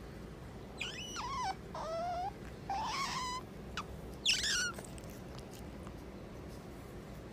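A pet otter making four short, high whining calls in quick succession, each under a second long, with the pitch bending up and down.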